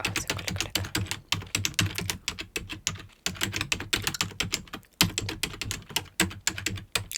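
Fast typing on a computer keyboard, many key clicks a second in quick runs, with two short pauses.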